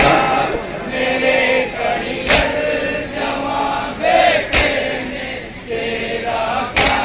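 A group of men chanting an Urdu noha (Shia lament) in chorus, with three sharp slaps of unison chest-beating (matam) about two seconds apart.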